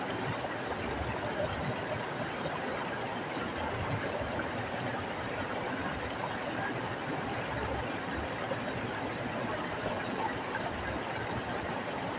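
Small stream rushing over rocks: a steady, even water sound.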